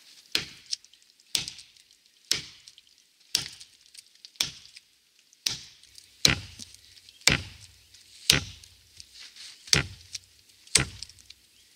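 Wetterlings Bushman axe chopping into a growing ash trunk: a steady run of sharp blows about one a second. From about six seconds in, the blows land with a deeper thud.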